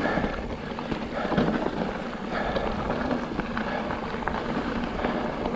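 Fezzari La Sal Peak mountain bike rolling along a rocky dirt trail: tyres crunching over gravel, with a steady crackle of small stones and rattles from the bike.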